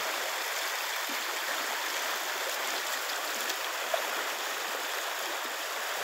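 River current rushing past, a steady even wash of running water.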